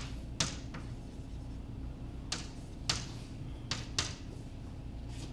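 Chalk ticking against a blackboard as numbers are written: about seven sharp, irregularly spaced taps over a steady low hum.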